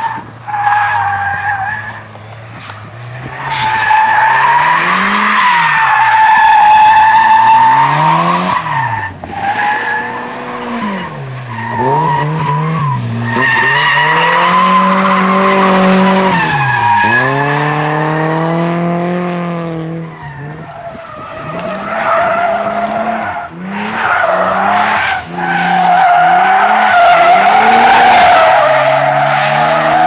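Drift cars sliding through a corner: engines revving hard up and down while the rear tyres squeal in long, wavering screeches. It breaks off briefly a few times as one slide ends and the next begins.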